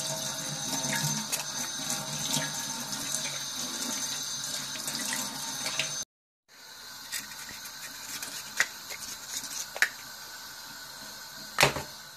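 Kitchen tap running into a stainless steel sink while green-lipped mussels are shucked under it, with small clicks of knife on shell. The sound drops out briefly about six seconds in, then the water runs on more quietly, with one sharp click near the end.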